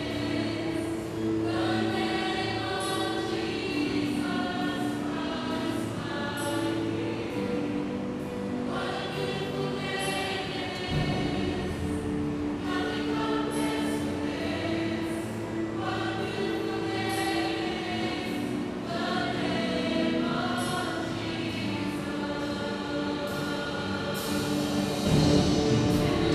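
A choir singing in parts, holding long chords in phrases a few seconds apart, with a louder swell near the end.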